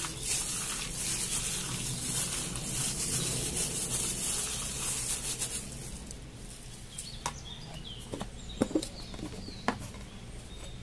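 A plastic-gloved hand squishes and kneads sliced raw beef in a wet marinade in a glass bowl, with the glove crinkling. After about six seconds this stops and only a few light clicks and faint chirps are heard.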